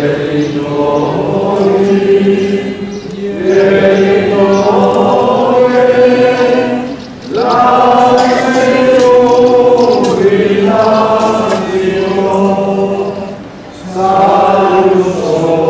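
Choir singing a slow religious hymn in long held notes, in phrases of about four seconds with a short break between them.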